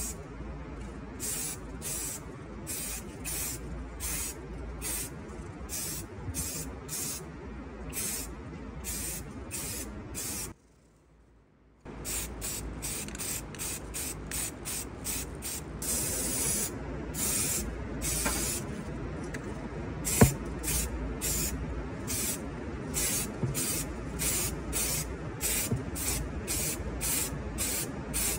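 Aerosol spray-paint can hissing in short, quick bursts, about two to three a second, as paint is misted onto a small diecast model body; partway through there is one longer continuous spray. A single sharp click about twenty seconds in, and a steady low hum underneath.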